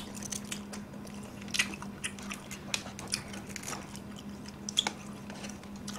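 Close-up chewing and biting of crispy fried glutinous-rice sweet and sour pork (chapssal tangsuyuk), with scattered short crunches and wet mouth sounds.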